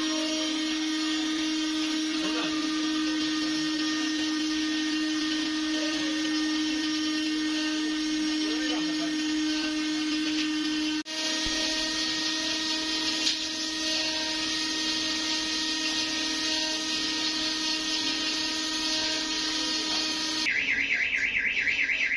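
A steady machine drone at a constant pitch, like a motor running, with a brief break about halfway. Near the end a fast-warbling high tone starts over it.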